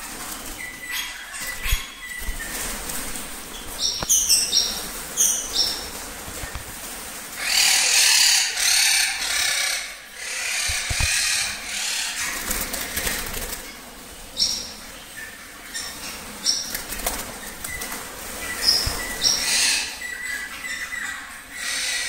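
Birds fluttering and flapping their wings in repeated irregular flurries, the loudest a few seconds in, with scattered short high-pitched chirps.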